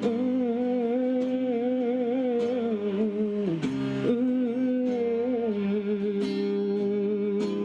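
Song playing: a singer holds long, slightly wavering notes with no clear words over a guitar accompaniment.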